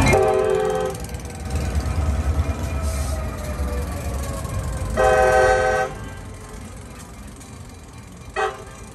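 New York & Atlantic Railway GP38 diesel locomotives running past close by, their engine rumble fading as the train pulls away. The horn sounds a short toot at the start, a longer toot about five seconds in, and a faint brief toot near the end.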